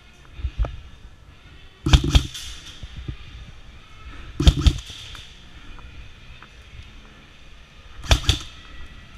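Airsoft guns firing three short bursts, each a quick run of sharp cracks, about two, four and a half and eight seconds in.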